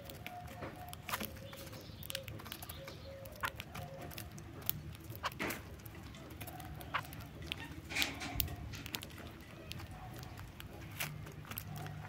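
Zebra finches pecking and husking seed in a feeder tray: irregular sharp clicks of beaks on seed and tray, over a low steady hum.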